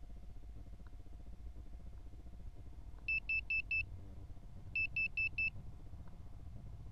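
Two groups of four short, high beeps, the groups about a second and a half apart, from the onboard buzzer of a Realacc X210 FPV quadcopter lying motionless on the ground, over a low steady rumble.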